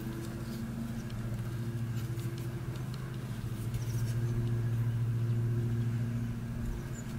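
A steady low engine hum that swells a little about halfway through and then eases, with faint light clicks.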